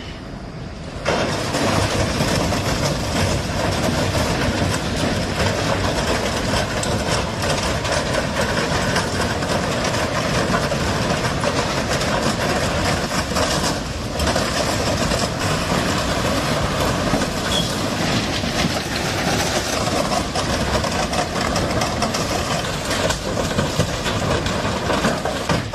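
Train running along the tracks close by: a loud, steady rumble and rail noise that starts abruptly about a second in.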